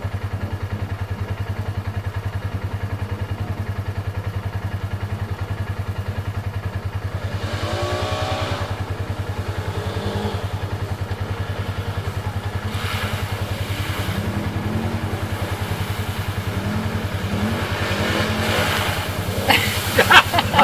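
ATV engines running through mud puddles, with a steady low drone and the engines revving up and down; one revs up about a third of the way in. Near the end, muddy water splashes and sprays as a quad churns through the puddle.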